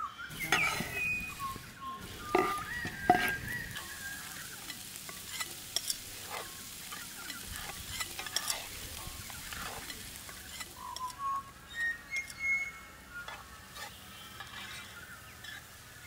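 Chopped vegetables frying in a hot cast-iron skillet over coals: a steady sizzle as they are scraped in off a wooden board and stirred with a metal spoon, with sharp knocks of utensils against the pan in the first few seconds and lighter scrapes and clicks after.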